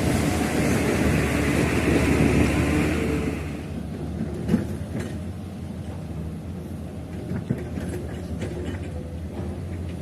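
Heavy construction machine's diesel engine running, louder for the first three or four seconds and then settling to a quieter steady hum, with two short knocks.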